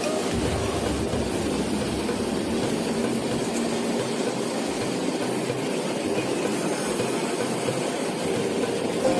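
Steady cockpit noise of a Boeing 737-500 taxiing with its engines at idle: an even rumble and hiss that holds level throughout.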